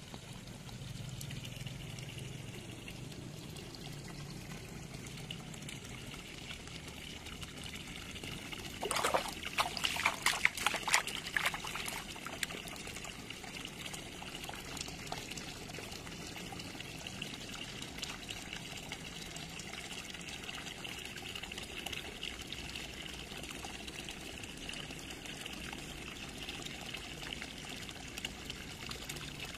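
Steady trickle of water pouring into a goldfish pond, with a few seconds of louder, sharp splashing about nine seconds in.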